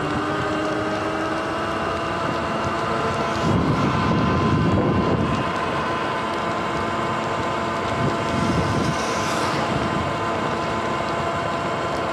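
Sur-Ron Light Bee electric dirt bike's motor and drivetrain whining steadily at cruising speed, over tyre hiss on wet pavement. Wind buffets the microphone in two gusts, about four and eight seconds in.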